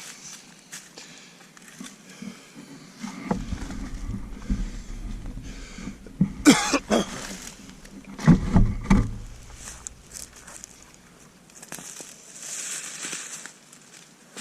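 Rustling and handling noise, with a low rumble through the middle and a few sharp knocks about six and a half and eight and a half seconds in.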